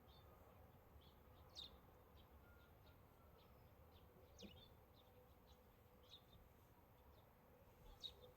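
Near silence with faint, short bird chirps scattered through it over a low background hum.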